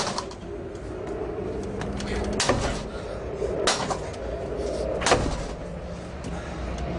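Steel pry bar clanking and levering against an Xpanda steel expanding security gate at its lock, with four sharp metallic clanks and the gate rattling in between.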